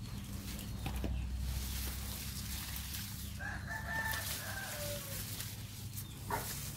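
A rooster crows once, a single call of nearly two seconds starting about halfway through and sliding down in pitch at its end. A sharp knock follows shortly before the end.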